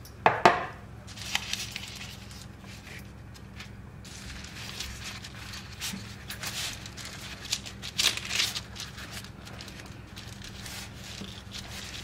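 Two sharp knocks just after the start, then on-and-off crinkling and rustling from thin börek dough sheets being handled and folded on the work surface.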